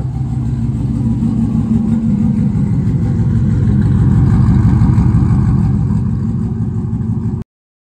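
Chevrolet Silverado engine with long-tube headers and a straight-piped exhaust running at idle, a loud steady exhaust note that swells slightly in the middle and cuts off abruptly near the end.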